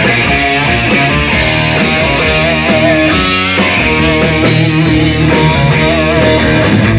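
Live rock band playing loudly: electric guitars, bass guitar and drums, with a wavering pitched line over the top.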